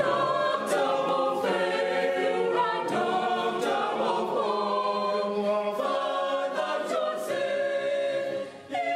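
Choir singing in held chords that change every second or so, with a short break near the end.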